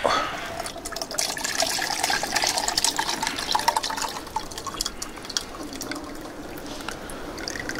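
Broth poured from a tilted stainless steel pot into a smaller pot, splashing and trickling, then thinning out toward the end.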